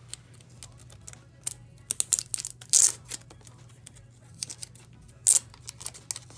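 Packaging being torn open by hand, with crinkling and small handling clicks and two louder, short rips: one about three seconds in and another just past five seconds.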